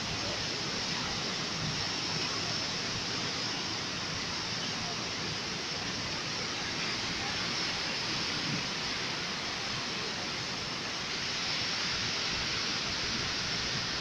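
Sea surf washing over and around shoreline rocks: a steady, even hiss of waves.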